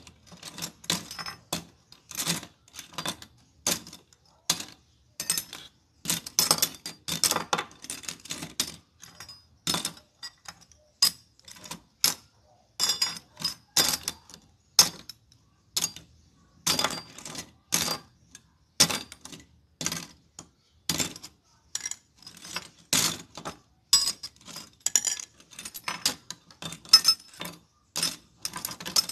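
A heap of steel concealed cup hinges for wardrobe doors being stirred and handled: irregular metallic clinks and rattles, several a second, each with a short bright ring.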